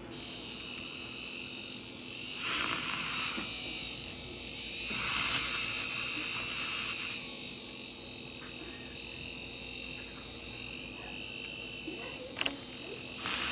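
Handheld milk frother's small motor buzzing steadily, with two louder stretches of hiss a few seconds in.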